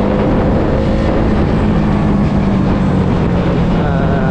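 Motorcycle engine running at a steady pitch while riding, under dense road and wind noise.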